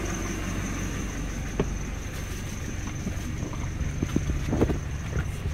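Steady low rumble of a car, with scattered light knocks and rustling from a handheld phone being moved about.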